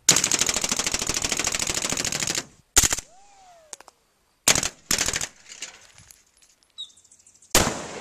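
Firearms recorded on an outdoor range: a sustained burst of automatic fire lasting about two and a half seconds, then a few single shots and a short burst, and a last shot near the end that leaves a long echoing tail.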